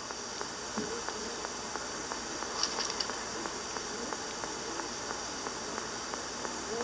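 Steady hiss of an old cassette tape recording, with faint scattered ticks and rustles.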